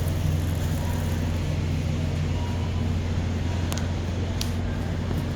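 Steady low electrical hum of supermarket refrigerated dairy cases, with a couple of faint clicks a little past the middle.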